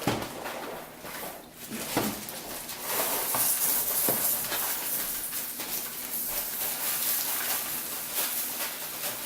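Cereal being crunched and chewed close to the microphone: a dense crackle of many small crunches, fuller from about three seconds in.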